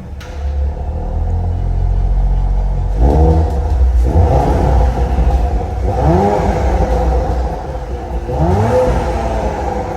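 Audi RS5's 2.9 TFSI twin-turbo V6 on its stock exhaust, running and revved three times, each rev rising and falling in pitch.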